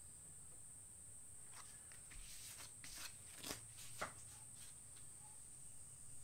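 A short run of quick scrapes and flicks, loudest about three and a half and four seconds in, as a paint-covered card is wiped off against a metal scraper. A faint steady high-pitched whine sits underneath.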